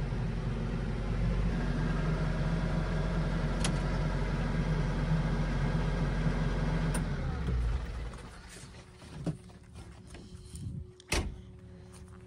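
Kubota KX080-4 excavator's diesel engine running, its pitch rising about a second and a half in; about eight seconds in the engine sound drops away and a few sharp knocks follow, the loudest near the end.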